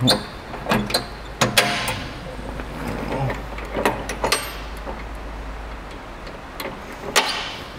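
A series of sharp metallic clanks and knocks from handling a compact tractor and its mowing deck, several bunched in the first two seconds, a couple around the middle and one near the end, over a faint low hum.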